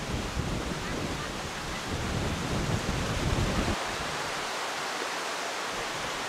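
Wind buffeting the microphone with low gusty rumble for the first three to four seconds, then a steady, even hiss of wind through trees and tall grass.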